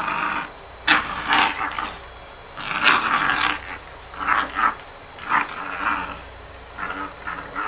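Dog growling in short, irregular bursts while playing tug with a knotted fabric toy.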